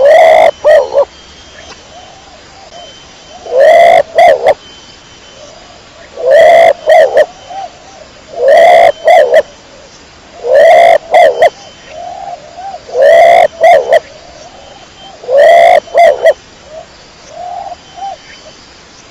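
Domestic pigeon cooing: seven loud calls, roughly every two to three seconds, each a drawn-out coo followed by one or two short notes, with softer coos in between.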